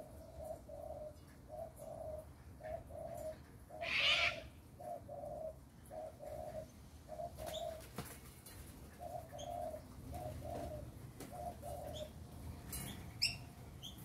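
Doves cooing in a steady run of low, soft coos, about two a second, stopping about twelve seconds in. A brief flurry of wing flaps about four seconds in is the loudest sound, and a few short high chirps from small birds come near the end.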